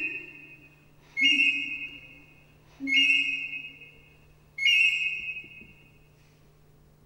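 A small wind instrument blown at a microphone sounds three high whistling notes about a second and a half apart. Each note starts sharply, holds two pitches at once and fades away.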